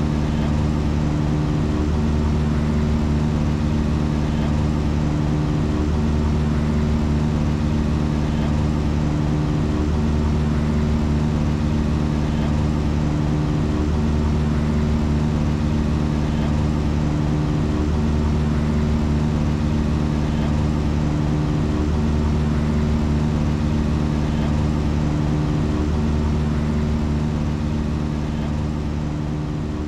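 Drum beats repeated at 2637 a minute, about 44 hits a second, so fast that they merge into a steady low buzz much like an engine drone. The pattern shifts a little every few seconds, and the sound starts to fade near the end.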